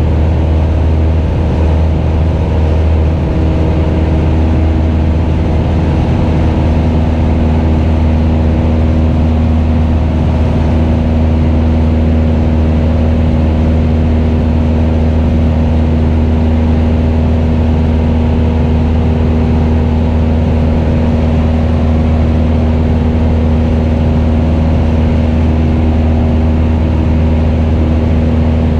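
A Cessna 172RG's 180 hp four-cylinder piston engine and propeller droning steadily in flight, with a constant rush of airflow over the externally mounted camera.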